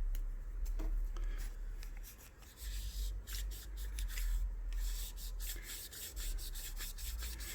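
Cotton swab rubbing through the bore of a Smith & Wesson M&P Shield pistol barrel as carbon and residue are cleaned out. It comes as a run of short, quick scratchy strokes that get busier in the second half.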